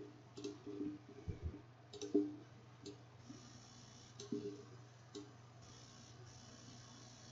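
Several scattered computer mouse clicks, faint, over a steady low electrical hum.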